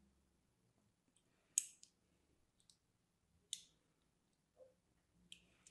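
A needle tool scoring lines into a bar of dry soap, giving a few crisp, sharp clicks spaced out by a second or two. The loudest is a double click about one and a half seconds in.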